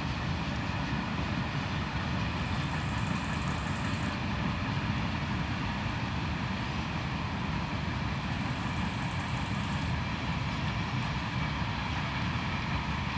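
A freight train's long rake of covered hopper wagons rolling past at a steady speed, giving an even, continuous rumble of wheels on the rails.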